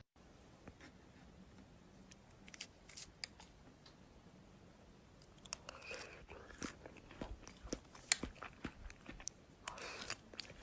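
Slime being squeezed and kneaded by hand, giving many small crisp crackles and clicks, with two louder squishy presses about six seconds in and near the end.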